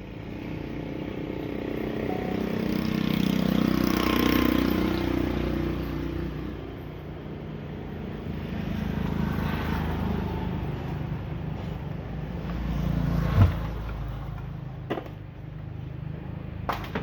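Engine noise of passing motor vehicles, swelling and fading several times. There is a sharp thump about thirteen seconds in and a couple of light clicks near the end.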